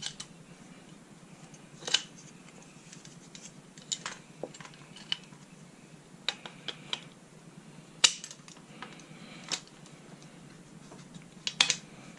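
Sharp clicks and knocks of paintball marker parts being handled and fitted together, as the upper with its handguard is joined to the lower frame. The loudest knock comes about eight seconds in, with a quick pair of clicks near the end.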